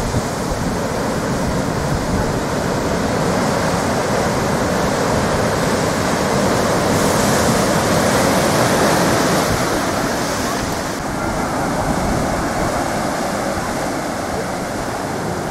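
Heavy ocean surf from a large storm swell: big waves breaking and whitewater washing in a steady, loud wash of noise. The hiss is strongest midway and softens a little about eleven seconds in.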